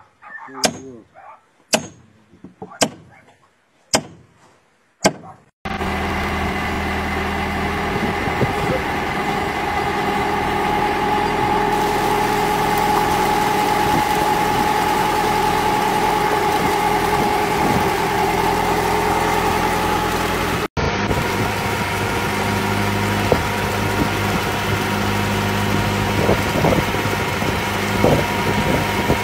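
Five hammer blows on a nail, about one a second, then an abrupt change to a belt-driven water pump and its engine running steadily.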